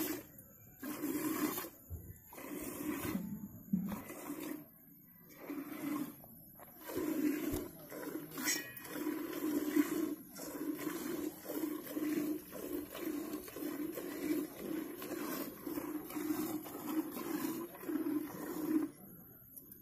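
Milk squirting from a cow's teats into a steel pot already holding milk, drawn by hand. The squirts come unevenly with pauses at first, then settle into a steady rhythm of about two a second.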